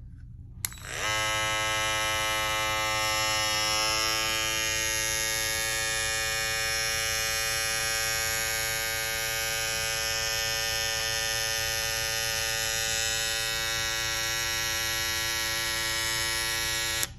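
Babyliss FX3 hair trimmer fitted with a graphite FX707B replacement blade, switched on with a click less than a second in, its motor spinning up and buzzing steadily, then switched off just before the end. It runs without the loud noise it had before, which the blade swap cured: "way quieter".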